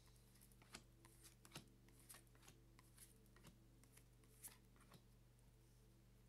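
Tarot cards being dealt one at a time from the deck onto a cloth-covered table: a faint series of short card snaps and slaps, about a dozen over four seconds, with a steady low hum underneath.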